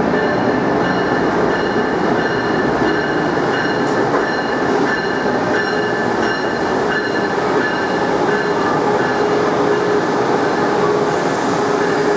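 Passenger train running: a steady, loud rumble of wheels on rail with several steady whining tones over it.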